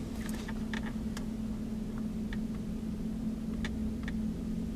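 Steady low hum inside a parked vehicle's cabin, with a few faint ticks scattered through it.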